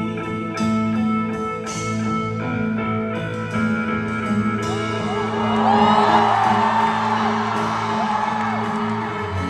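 Instrumental passage of a slow pop ballad, with guitar over steady held chords. About five seconds in, a swell of many high wavering voices rises over the music and fades near the end.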